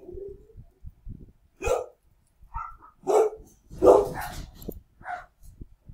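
Dogs barking: a run of separate barks over a few seconds, the loudest about three and four seconds in.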